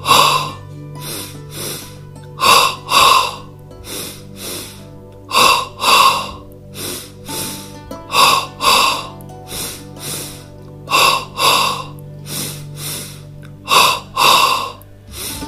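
Yogic double breathing: a man takes short, forceful abdominal breaths in through the nose and out through the mouth, each breath split into two quick pushes. A strong pair comes about every three seconds with a weaker pair between. Soft background music with held tones plays underneath.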